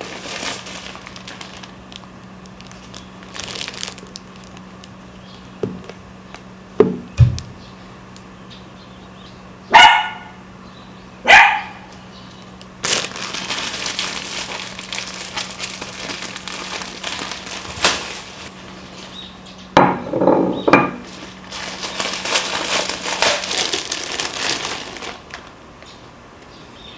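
Kaninchen dachshund barking, two sharp barks about ten and eleven seconds in, with long stretches of hissing noise in the second half.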